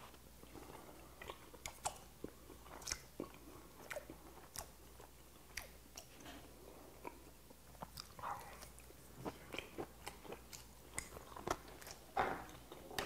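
A man chewing boiled white whelk meat with its innards, close to a clip-on microphone: faint, irregular wet clicks and smacks of the mouth.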